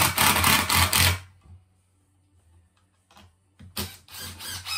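Cordless impact driver driving screws into wood with a rapid hammering clatter. The first run stops about a second in; after a short pause with a couple of small clicks, the driver starts again near the end.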